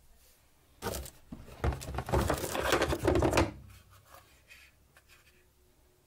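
Hands rummaging through the plastic accessories in a multitool's hard plastic carrying case. A clear plastic bag crinkles and hard plastic parts clack, densely for about two and a half seconds from about a second in, then only faint handling.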